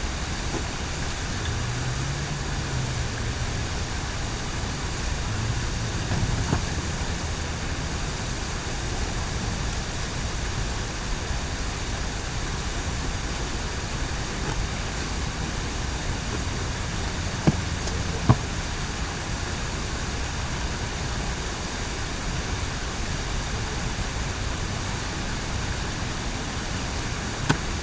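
Steady road traffic noise, with two sharp clicks close together about two-thirds of the way through.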